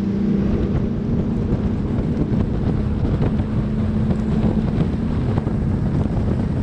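Bass boat's outboard motor running at a steady pitch while the boat travels, with wind buffeting the microphone.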